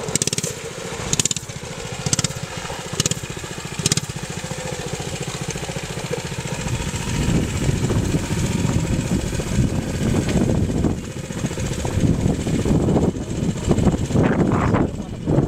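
Small gas engine of a 1/4-scale RC truck running and being throttled up and down as the truck drives over dirt. There are sharp blips about once a second in the first few seconds. The sound grows louder and rougher in the second half.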